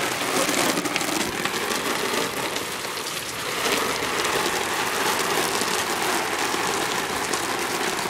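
Water from a hose spraying upward and falling onto a trampoline mat in a steady, even hiss.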